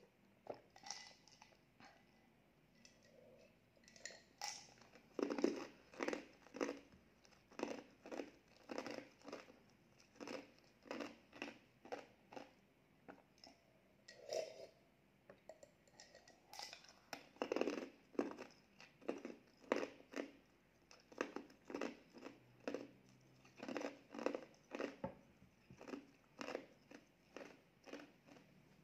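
Ice cubes being crunched and chewed, close to the microphone, at about two crunches a second, in two runs with a short pause in the middle.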